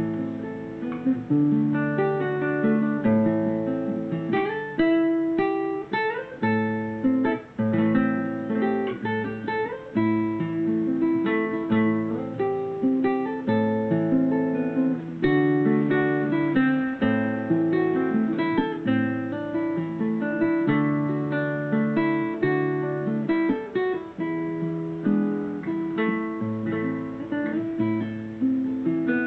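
Solo classical nylon-string guitar played fingerstyle: a plucked melody over low bass notes.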